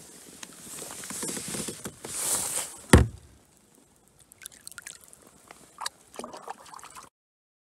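A largemouth bass being let go over the side of a kayak: handling and water noise, a sharp splash about three seconds in as the fish goes into the water, then small drips and trickles. The sound cuts off just after seven seconds.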